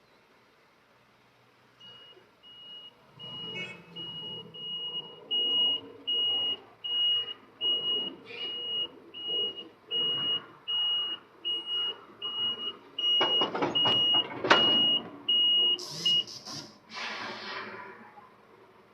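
A truck's reversing alarm beeping steadily, about three beeps every two seconds, over the engine as the truck backs up to couple a trailer. Several clunks about thirteen to fifteen seconds in, the loudest near fourteen seconds, then the beeping stops and bursts of hiss follow near the end.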